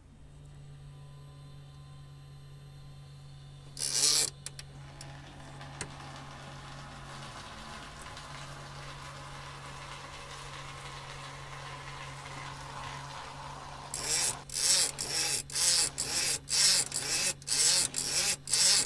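Electric aircraft fuel pump humming steadily while fuel streams from a disconnected feed line into a plastic bin, a sign that fuel is reaching the distribution manifold. One loud rough burst about four seconds in, and a run of loud rough bursts, about two a second, over the last five seconds.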